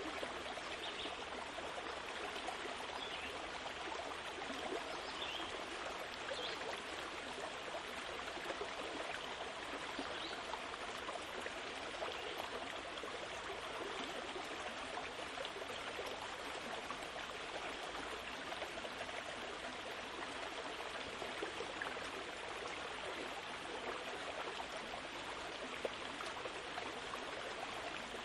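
Steady rushing noise like a flowing stream, even in level throughout, with a few faint short high chirps in the first several seconds.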